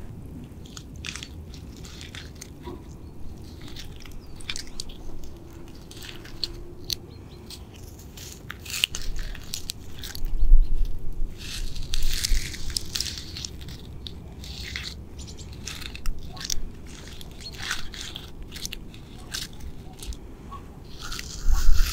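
Rough, flaky pine bark being scratched close to the microphone: irregular dry crackling scrapes, busiest about ten to thirteen seconds in.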